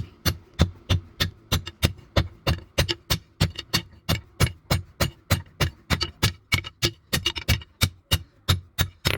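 Hand hammer striking leaf-spring steel on an anvil in a steady rhythm, about three ringing blows a second.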